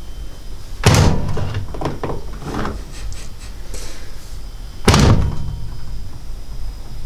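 Washing machine door being opened and shut: two loud clunks about four seconds apart, with lighter clicks and rattles of the door and latch between them.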